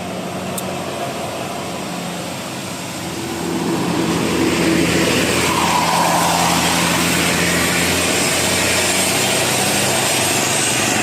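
A road vehicle passing close by, its engine and tyre noise growing louder about three and a half seconds in and staying loud.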